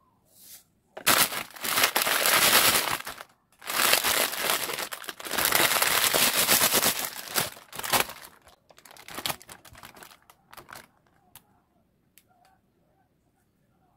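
Sheets of dry roasted seaweed (gim) crushed and crumbled by hand: crisp crinkling and crackling in two long loud spells, thinning to scattered crackles that stop near the end.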